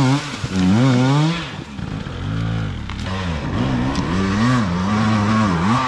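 Enduro dirt bike engines revving, the pitch rising and falling again and again as the throttle is worked.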